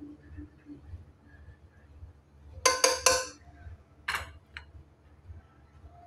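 A metal serving spoon clinking against a pot and a ceramic plate as rice is dished out. A quick run of three clinks comes a little under three seconds in, and one or two more follow about a second later.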